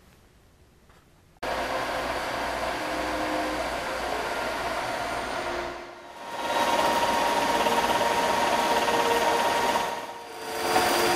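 Metal lathe running with its chuck spinning, a steady mechanical noise with a machine whine. It starts suddenly a little over a second in and dips briefly twice.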